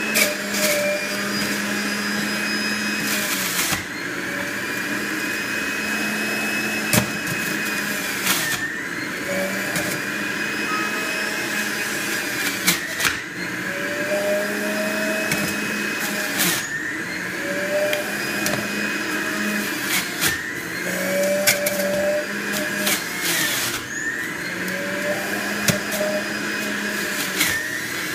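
Breville BJE510XL centrifugal juicer's motor running under load as kale and apple quarters are pushed down the feed chute. Its pitch dips and recovers every few seconds as each load goes in, and a few sharp knocks come from the plastic pusher.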